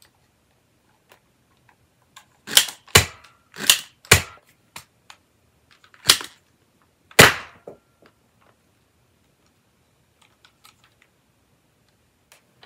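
Nerf Alphastrike Claw dart blaster being reloaded: a run of sharp plastic clacks, four in quick succession, then two more a couple of seconds later, with fainter clicks in between.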